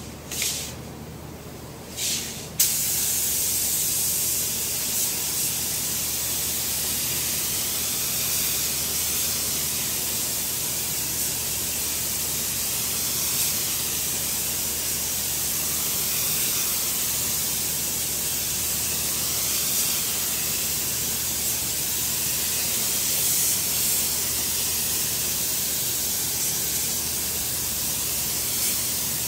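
Gravity-feed paint spray gun spraying clear coat, with the hiss of compressed air through the nozzle. Two short bursts come about half a second and two seconds in, then a steady hiss runs on without a break.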